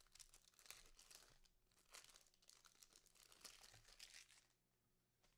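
Faint crinkling and tearing of a trading-card pack wrapper and cards being handled, in irregular bursts that die away near the end.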